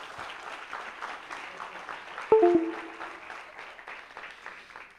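Audience applauding after a joke's punchline, fading away near the end. About two seconds in, a single sharp knock with a short metallic ring stands out as the loudest sound.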